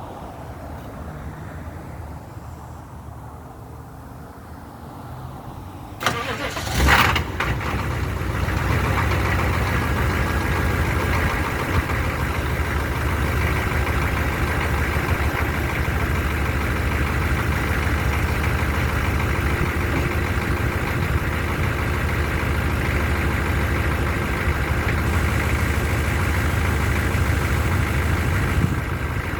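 1994 Chevy C3500's 6.5 L turbo diesel V8 started from cold: the starter cranks about six seconds in, the engine catches within a second or two, and it then idles steadily. This is the first start of the day for an engine with a hard-start problem that throws code 36.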